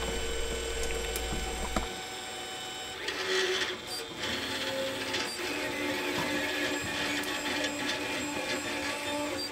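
Monoprice Maker Select Mini V2 3D printer starting a print: its stepper motors whine in shifting tones as the print head and bed move. A low hum in the first two seconds stops abruptly.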